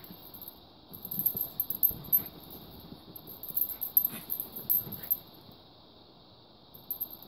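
A German Shepherd/Boxer mix puppy and a Chihuahua/Terrier mix play-fighting: dog play noises mixed with scuffling and rustling on the bedding, in irregular bursts, busiest from about a second in until about five seconds in.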